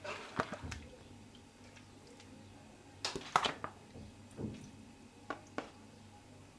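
Serving spoon clicking against a steel cooking pot as spoonfuls of wet beef korma are dropped onto a layer of boiled rice: a few soft clicks and squishy knocks, bunched about halfway through and again shortly after.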